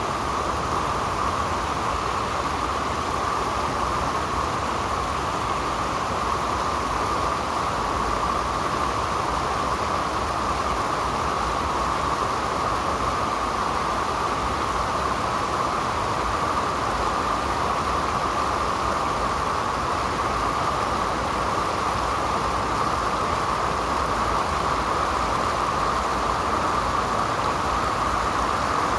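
Steady, unbroken rush of flowing stream water, even in level throughout.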